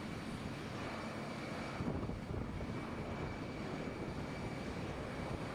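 Jet airliner taxiing: a steady rumble and rush from its turbofan engines, with a thin high whine held steady on top.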